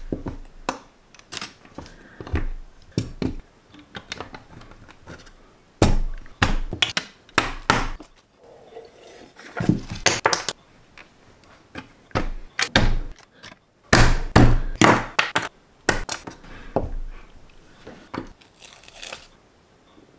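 Plastic LEGO bricks clicking and knocking against each other and the tabletop as they are handled with metal tweezers, in irregular clusters of sharp taps with short pauses between.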